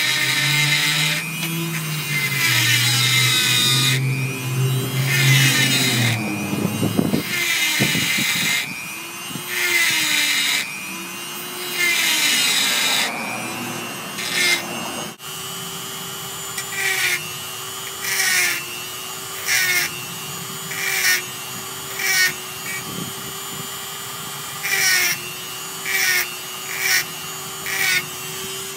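Handheld rotary tool with a small grinding stone running with a steady whine. Its pitch sags each time the stone bites into a steel ring gear tooth of a Ford 7.5-inch differential. The grinding comes in long passes for the first half, then in short touches about once a second, as the tooth is ground down so the differential cross pin can slide out.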